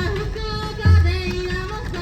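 Music with a sung or melodic line over a heavy bass beat that hits about once every second and a half.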